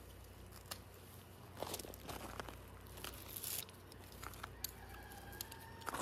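Rustling and crackling of flower stems and foliage being handled during a cut-flower harvest, with a few sharp clicks. A faint, drawn-out rooster crow comes near the end.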